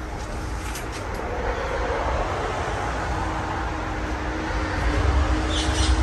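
Casablanca Spirit of Saturn ceiling fan running with five blades: a steady rush of moving air with a low rumble, growing slightly louder. A faint steady hum comes in about halfway, and a few light ticks sound near the end.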